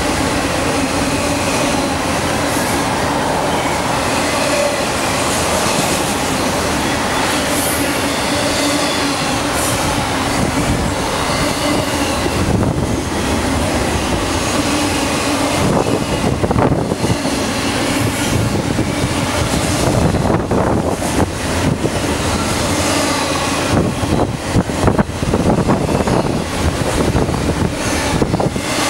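Long intermodal double-stack container train rolling past, a continuous rumble of steel wheels on rail with a few steady ringing tones over it in the first half. From a little past halfway it turns into a choppier clatter of sharp clicks as the wheels pass over the rail joints.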